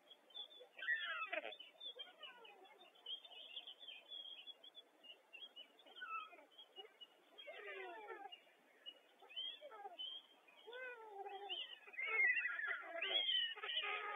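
White stork nestlings giving mewing begging calls: many short sliding cries, often overlapping, growing louder and busier about two seconds before the end.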